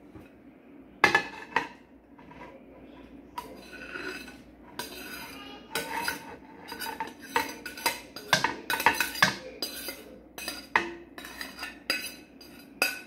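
A utensil scraping and clinking against a plate as chopped chicken is scraped off it into a pot. Two sharp clinks come about a second in, then quick, repeated scrapes and taps from about three and a half seconds on.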